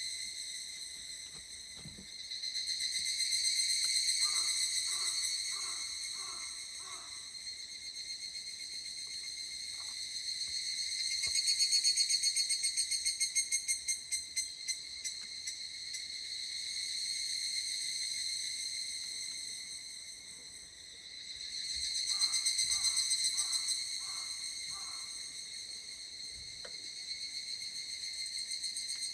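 Chorus of higurashi (evening cicadas, Tanna japonensis) calling in overlapping waves that swell and fade. About eleven seconds in, one calls close by with a fast pulsing trill that slows down as it ends. Twice, a short run of lower repeated notes sounds under the chorus.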